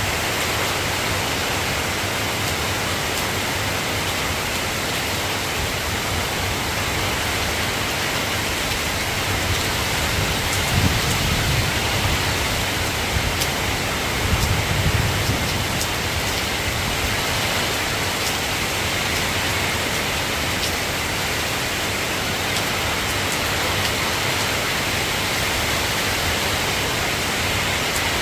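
Steady soft rain falling, a continuous even hiss with faint drop ticks. Two brief low rumbles of distant thunder come about ten and fourteen seconds in.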